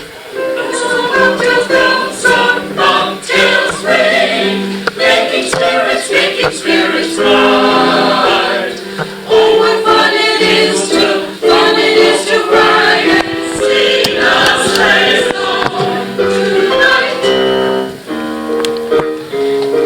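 Choir singing, several voices together on changing chords.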